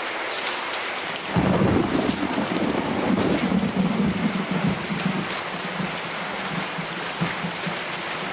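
Steady heavy rain with a long rumble of thunder that comes in about a second in and rolls on.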